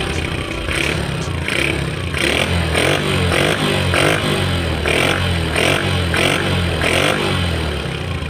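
Yamaha LC135's 135 cc single-cylinder four-stroke engine running just after a kick start, revved in quick repeated throttle blips about one and a half to two times a second.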